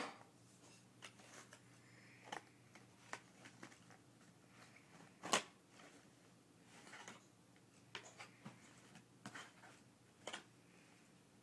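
Quiet handling of a model airplane's box and packaging: scattered light clicks, taps and rustles at uneven intervals, with one sharper knock about five seconds in.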